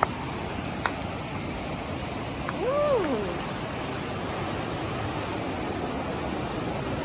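Steady rushing of a waterfall running strong with rainwater. About three seconds in there is one short call that rises and then falls, and there are a couple of faint clicks near the start.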